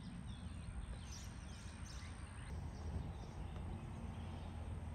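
Quiet outdoor ambience: a low steady rumble with faint, scattered bird chirps.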